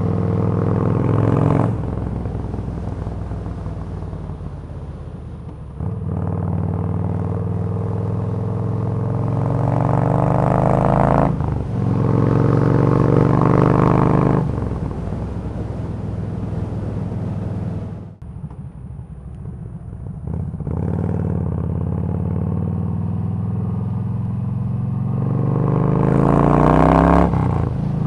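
Yamaha V-Star 1300's V-twin engine running under way, its revs climbing and falling several times as the rider works the throttle and gears. The throttle is shut for a couple of seconds about two-thirds of the way through, then the engine pulls up again.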